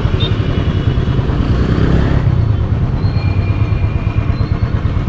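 Royal Enfield Bullet 350's single-cylinder engine running under way, a steady low, fast beat, heard from the rider's position on the bike.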